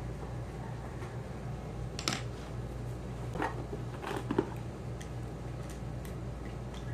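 A few light clicks and taps of makeup containers being handled, about two seconds in and again around three and a half to four and a half seconds, over a steady low hum.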